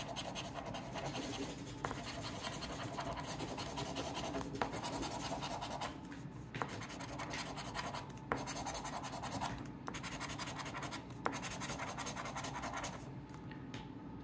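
A coin scraping the coating off a scratch-off lottery ticket: runs of rapid rasping strokes broken by short pauses, easing off near the end.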